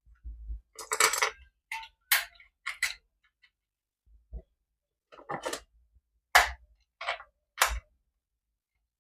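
Toys being handled during unboxing: about a dozen short, irregular clicks and clacks of hard objects knocking together, with quiet gaps between them.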